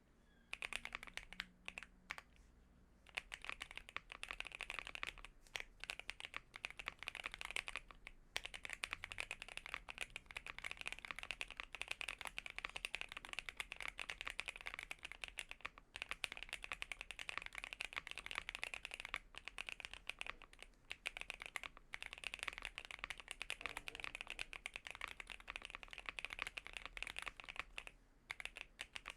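Typing on a Monsgeek M1 mechanical keyboard with AKKO CS Silver linear switches and PBT doubleshot keycaps, modded with tape and PE foam. A few single keystrokes come first, then fast continuous typing starts about three seconds in, broken by a few brief pauses.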